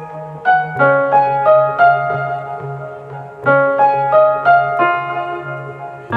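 Piano music: a melody of single struck notes that fade, over held low bass notes.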